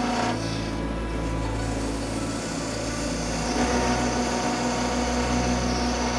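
Wood lathe running with a steady motor hum while a hand-held turning tool cuts into a spinning wooden pepper mill blank, throwing off long shavings. The cutting noise shifts as the tool moves along the blank.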